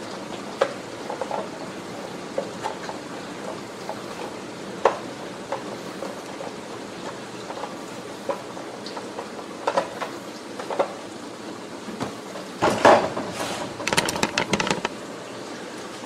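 A cloth towel rubbing and wiping inside a Shark cordless vacuum's plastic housing and dust-cup lid, with scattered light knocks and scrapes of plastic. Near the end comes a louder run of plastic clatter as the opened vacuum body is handled and set down on the stone countertop.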